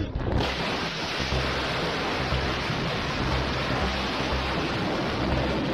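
Steady rushing roar of a storm, heavy rain and wind, beating on a moving vehicle as the dashcam's view is blotted out. It sets in abruptly just after the start and holds even.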